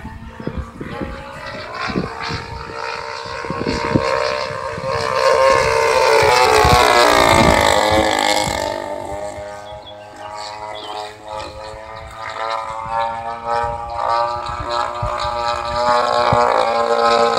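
Radio-controlled P-47 model plane's motor and propeller running in flight. It grows louder and drops in pitch as the plane makes a close pass about seven seconds in, then drones on steadily farther off. Low thumps hit the microphone in the first few seconds.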